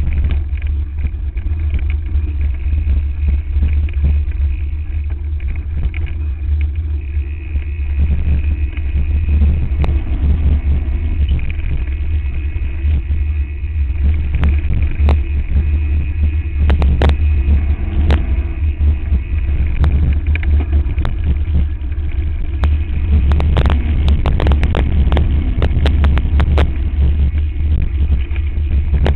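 Wind buffeting the microphone of a camera mounted on a mountain bike descending a rough dirt singletrack at speed. The bike rattles and knocks over rocks and ruts throughout, with the knocks coming thick and fast in the second half.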